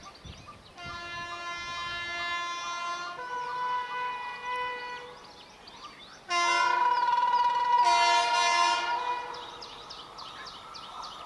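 Air horn of an Indian Railways electric locomotive on an approaching express train. It gives a long blast that changes pitch partway, then after a short pause a louder blast of about three seconds, starting about six seconds in. Near the end the train's running noise rises as it closes in.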